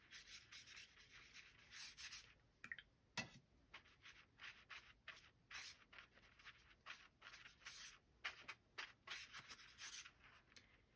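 Small paintbrush stroking a wet watercolor wash across watercolor paper: a faint, irregular run of short brushing scratches.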